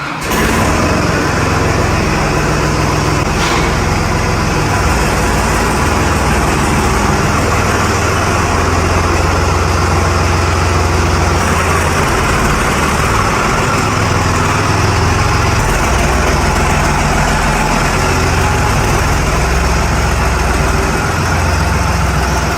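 Tractor diesel engine running steadily and loud, with a deep even drone.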